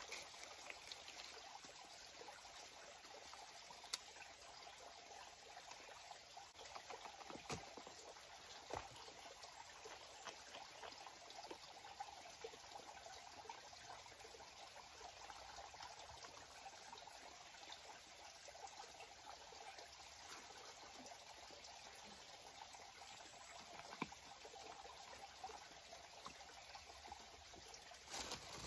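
Faint steady trickle of running stream water, with a few light clicks and knocks.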